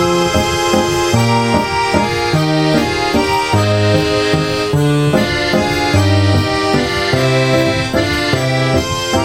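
Background music: a lively accordion tune with a steady bass line.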